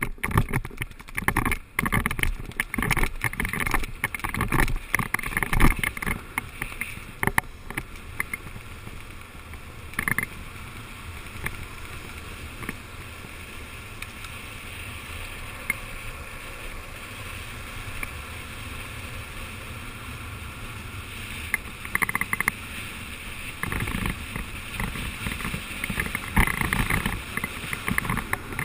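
Downhill longboard wheels rolling fast on asphalt with wind rushing over a helmet-mounted microphone. It is choppy and loud with low buffeting for the first few seconds, settles into a steadier rush in the middle, and turns choppy again near the end.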